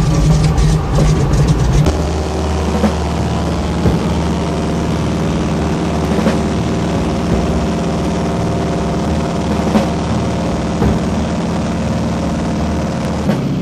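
De Havilland Beaver's Pratt & Whitney R-985 radial engine running unevenly, then about two seconds in settling into a steady, even run.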